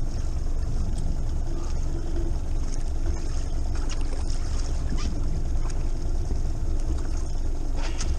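Steady low rumble aboard a small fishing boat at sea, with a few faint clicks and knocks around the middle and near the end.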